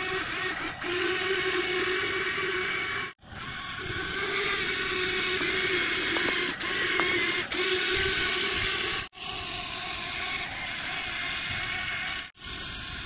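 Small electric motors and plastic gearboxes of a toy RC excavator whirring steadily as it crawls on its tracks. The sound breaks off abruptly a few times.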